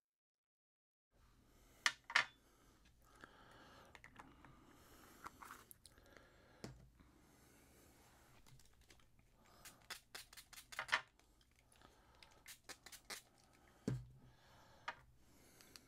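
Light clicks and taps of a small glass bowl and a jar of paste being handled on a craft mat. A quick run of clicks comes about ten seconds in, and a single low knock a few seconds later.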